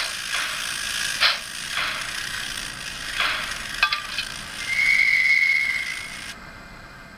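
Model steam locomotive sound decoder (ZTC473, GWR & Southern sounds) playing slow steam chuffs about a second apart, a sharp click, then one steady whistle blast of nearly two seconds, after which the sound fades away.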